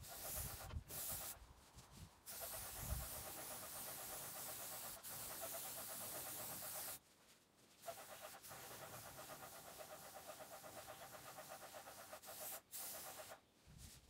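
Graco airless paint sprayer spraying paint onto timber siding: a steady hiss that stops briefly several times as the gun's trigger is released, for the longest pause about seven seconds in.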